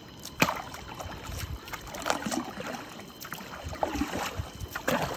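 Small wooden canoe being paddled on a river: paddle strokes through the water, with a few sharp knocks of the paddle or hull, and water washing along the boat.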